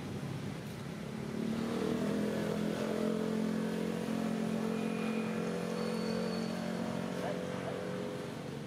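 A motor vehicle's engine running with a steady hum that swells about a second and a half in, then eases off slightly near the end.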